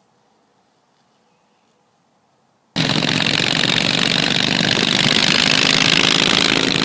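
Near silence, then about three seconds in a loud Shovelhead Harley V-twin engine cuts in abruptly and keeps running steadily, a raspy exhaust note over a low hum.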